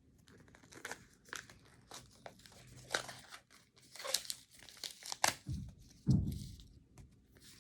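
Paper crinkling and tearing in irregular crackles as a homemade paper blind bag is ripped open by hand, with a couple of dull handling thumps about two thirds of the way through.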